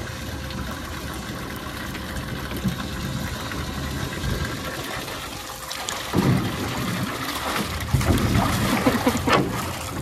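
A stream of water trickling into a metal tub pool, with a lion splashing in the water from about six seconds in, loudest near the end.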